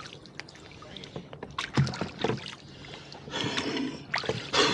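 Rowboat under oars: sharp knocks of the oars working in their oarlocks and the blades splashing in the water, with two louder splashes in the last second and a half.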